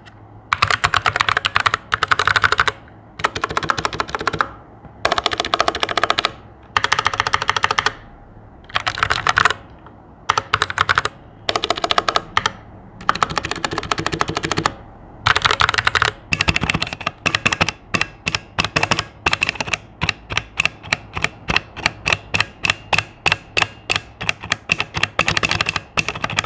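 Typing on a Royal Kludge RK61 60% mechanical keyboard. For about the first half, fast runs of key clacks are broken by short pauses; after that comes a steady run of keystrokes about four a second. The spacebar has a slight ping.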